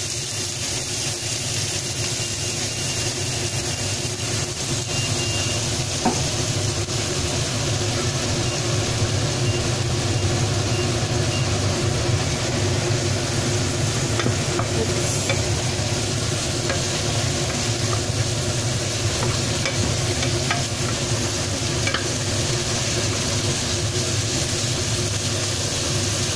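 Broccoli and chicken sizzling in a non-stick frying pan as they are stir-fried, with faint scrapes and taps of the spatula against the pan over a steady low hum.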